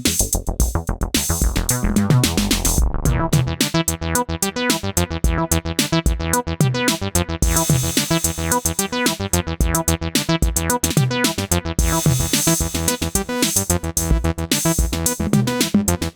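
Synthesizer bass line playing a sequenced, repeating pattern over a drum machine beat, with the sound turning fuller and brighter about three seconds in.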